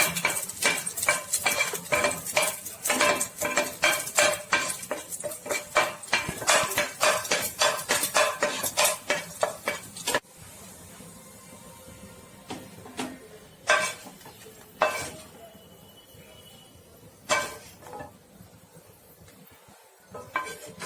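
A spatula stirring and scraping against a frying pan in quick repeated strokes as dried red chillies and garlic fry in coconut oil. After about ten seconds the stirring stops and only a few separate knocks follow.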